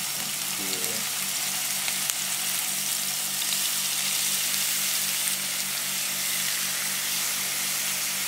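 Seasoned raw fish fillets sizzling steadily as they pan-fry in hot oil in a frying pan.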